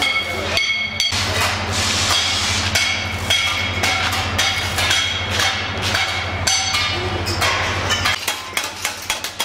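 Metal workshop noise: repeated hammer blows on steel, irregular and ringing, over a steady low hum that starts about a second in and stops near the end.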